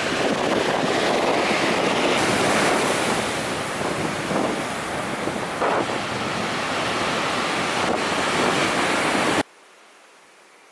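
Ocean surf breaking on a beach, with wind buffeting the microphone. The noise cuts off suddenly near the end, leaving only a faint hiss.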